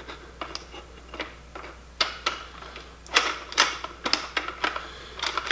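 Irregular metallic clicks and clacks of a steel folding pistol brace being worked onto the adapter bolt at the back of an AK pistol's receiver, with a few sharper clacks about two, three and four seconds in.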